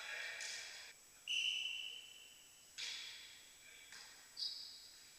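A volleyball being struck and bouncing during play, about four sharp hits that echo and die away slowly in a large gym hall; a high steady tone hangs on after two of them.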